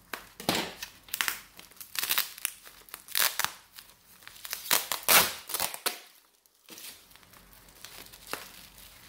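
Plastic bubble wrap crinkling and tearing as it is slit with a kitchen knife and pulled open by hand: a series of loud rustles for about five seconds, a brief silence, then softer crinkling.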